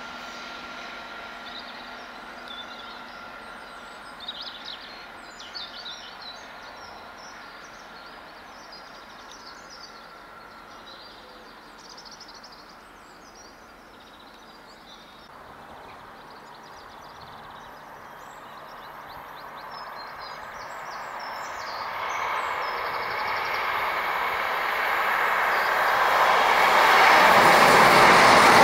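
An HST with Class 43 diesel power cars approaches at speed, its engine and wheel-on-rail noise growing steadily louder over the last several seconds and loudest as the train reaches the platform.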